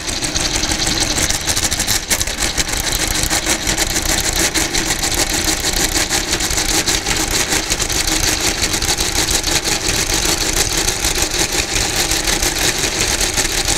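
Friden automatic square-root calculator, an electromechanical desk calculator, running its square-root routine: a fast, steady mechanical clatter as it works out the square root of 20.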